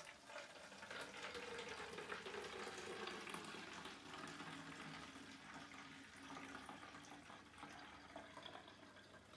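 Diluted hand sanitizer solution, mostly water, poured in a steady stream from a plastic measuring jug into a spray bottle, trickling faintly as the bottle fills. It grows fainter toward the end.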